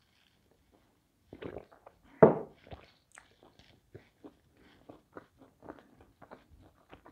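Close-miked eating sounds: wet lip smacks and many small chewing clicks as a mouthful of pizza is chewed with closed lips. A short louder sound comes about two seconds in.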